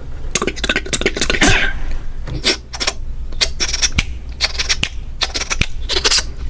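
Quick, irregular sharp clicks and taps, some in close clusters, over a steady low hum.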